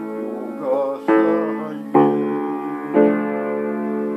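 Keyboard accompaniment to a sung romance: piano-like chords struck about once a second and left to ring, between lines of the song.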